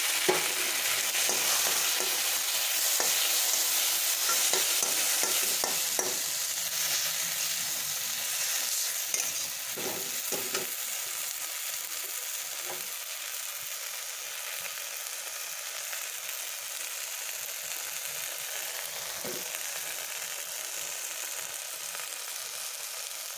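Grated cassava sizzling in hot mustard oil in a metal kadai, a steel spatula scraping and tapping the pan as it is stirred. The sizzle is loudest at first, with orange juice just poured into the hot oil, and slowly dies down; the spatula knocks are most frequent in the first half.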